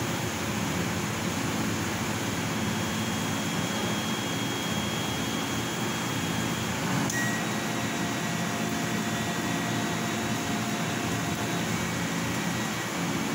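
Laser cutting machine running as its head cuts a cardboard sheet: a steady fan-like rushing noise with a low hum. Faint high whines shift in pitch about seven seconds in, just after a small click.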